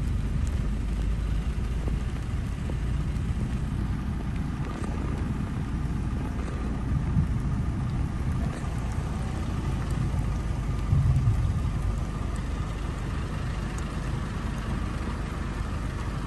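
Wind buffeting the phone's microphone in an uneven low rumble, with a stronger gust about eleven seconds in.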